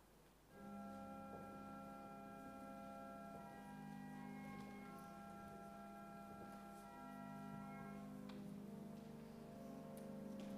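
Church organ playing slow, quiet music of held chords that change every couple of seconds, resuming after a brief break about half a second in.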